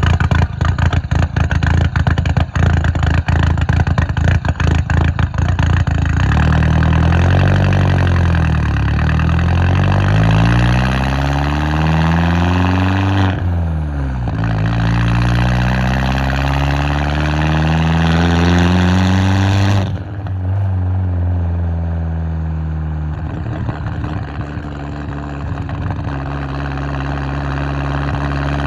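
Volkswagen Jetta 1.8T turbocharged four-cylinder engine: choppy, uneven running at first, then the pitch climbs slowly twice and drops off sharply each time, before it settles into a steady idle, which the owner says has a big vacuum leak.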